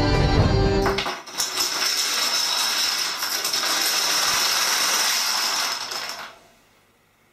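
Background music cuts off about a second in. A large pixel-art field of dominoes then topples in an accidental chain reaction, a dense clatter of countless small tiles falling that lasts about five seconds and stops suddenly.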